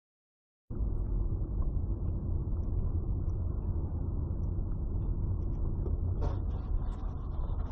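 Dashcam audio from inside a moving car: a steady low engine and road rumble, starting abruptly under a second in.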